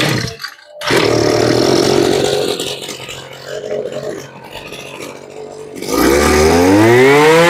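Mitsubishi TU26 26cc two-stroke brush-cutter engine pull-started on its recoil starter, catching about a second in and running at idle. Near the end it is throttled up, its pitch rising smoothly to a steady high rev.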